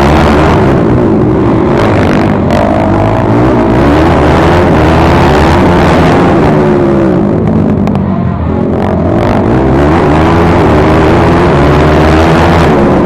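Yamaha YFZ-450 quad's single-cylinder four-stroke engine racing at full throttle. Its pitch climbs and drops again and again through throttle and gear changes, with a brief dip about eight seconds in.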